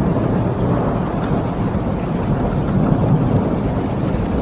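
Low, continuous thunder rumbling over steady rainfall, with no sharp crack.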